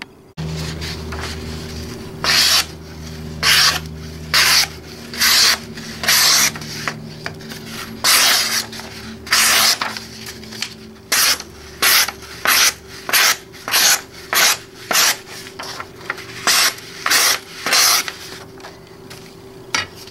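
Kasumi titanium-coated santoku knife slicing through sheets of paper: about twenty short hissing cuts, roughly one a second, the clean strokes of a very sharp edge.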